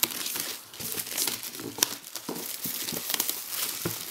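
Clear plastic wrapping film being pulled and peeled off a box by hand, crinkling with a few sharp crackles.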